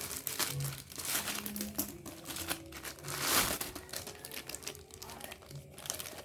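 Packaging crinkling and rustling as it is handled and opened to unpack a radiator hose, with irregular crackles that swell loudest about three seconds in.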